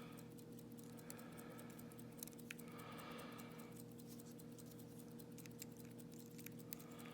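Faint, scattered small clicks and taps of a padlock and its metal parts being handled during disassembly, over a low steady hum.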